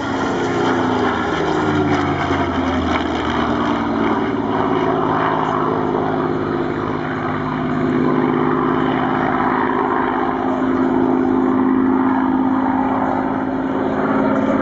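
Supermarine Spitfire Mk XVI's Packard Merlin V12 engine and propeller droning steadily through an aerobatic display. Its pitch falls over the first few seconds, then holds steadier as the aircraft banks through its turns.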